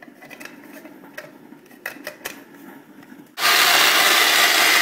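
A few light plastic clicks and knocks as the lid is fitted onto a Black+Decker mini food processor. About three and a half seconds in, its motor starts suddenly and runs loud and steady while the blade chops onion.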